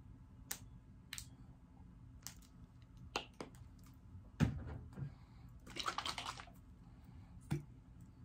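Plastic squeeze sauce bottles being handled: scattered sharp clicks and taps, a thump about four and a half seconds in, and a brief crackling rustle about six seconds in.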